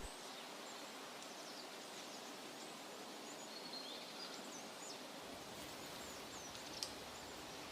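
Faint outdoor ambience: a steady hiss with a few distant bird chirps, and a single sharp click near the end.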